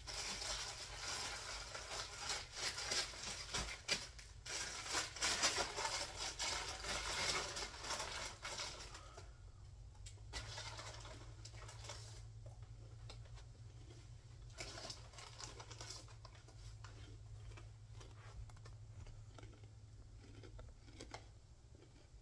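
Crinkly plastic snack-chip bag being handled, with dense crackling for about the first nine seconds, then only occasional fainter rustles.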